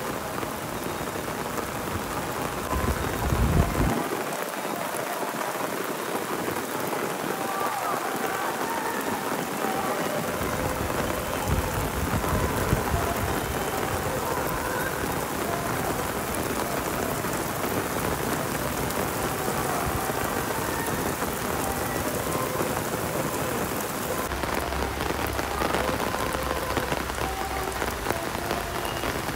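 Heavy rain pouring onto paved ground, a steady, even hiss of falling drops, with a brief low rumble about three to four seconds in.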